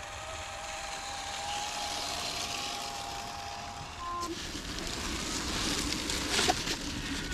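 Electric motor of an RC rock crawler whining steadily as it drives slowly. From about four seconds in, tyres crunch and scrape over rock and gravel with scattered clicks.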